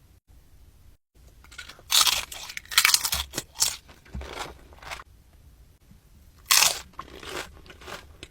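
Loud, close-up crunching bites and chewing of crunchy food, in irregular bursts that begin about two seconds in.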